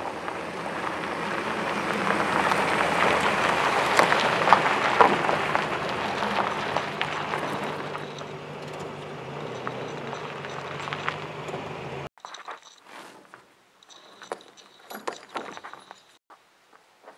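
A Toyota Tacoma pickup's engine pulling under load while a bundle of logs drags over gravel on a steel cable, a loud gritty scraping and crunching that swells and then fades as the truck pulls away. About twelve seconds in it cuts off abruptly to faint clicks and scrapes of the steel cable being handled and footsteps on gravel.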